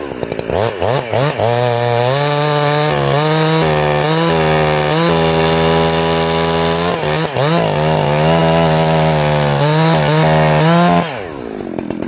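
Two-stroke chainsaw revving up and held at full throttle while cutting through a log, its pitch dipping several times under load, then falling away as it comes out of the cut near the end. The carburetor's high-speed jet is set very rich, so the saw four-strokes, a blubbering in the cut.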